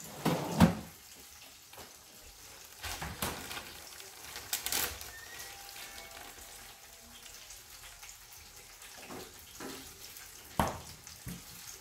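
Coated chicken thighs frying in oil in a skillet, a faint steady sizzle, broken by a few knocks and clatters of kitchen things. The loudest knock comes about half a second in.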